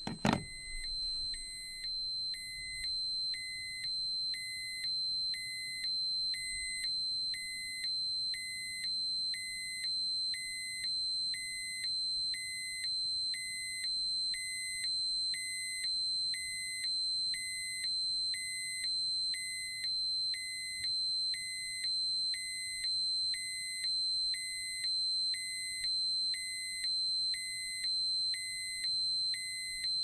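Electronic dosimeter alarm sounding: a steady high-pitched tone under a beep that repeats about once a second. A single sharp click comes just at the start.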